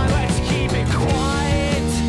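Music: a rock song with guitar and a steady beat.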